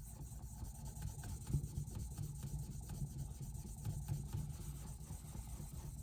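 Diamond sharpening plate, 600 grit, rubbing along a steel knife edge in repeated short back-and-forth strokes on a guided sharpening system, the sound of the plate cutting the edge.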